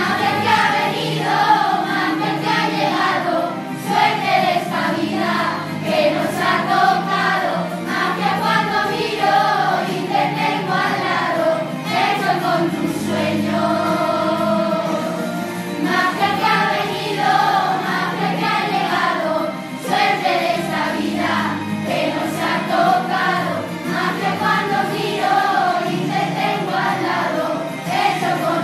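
A choir singing a Christmas song over instrumental backing.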